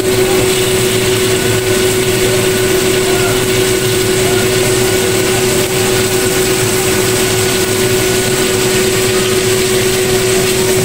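Garlic and red bell pepper pieces frying in hot oil in a wok, a steady sizzle, over a constant loud machine hum.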